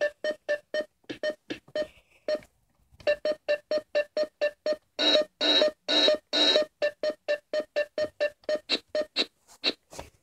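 Electronic music: a single synth-like keyboard note repeated in short quick hits, about four to five a second. It pauses briefly about two and a half seconds in, and the notes are longer and louder around the middle.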